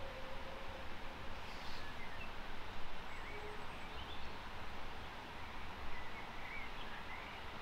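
Rural outdoor ambience with a low steady rumble and a few faint bird chirps, as the last of a steam locomotive's whistle dies away in the first second.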